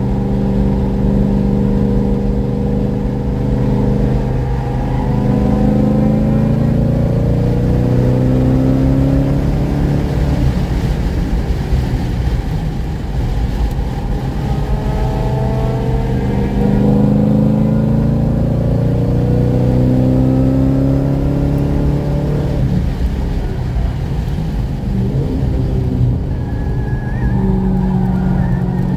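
Forced-induction car engine heard from inside the cabin while lapping a race track, climbing in pitch three times under long pulls and falling away in between under braking and cornering, over steady road and wind noise.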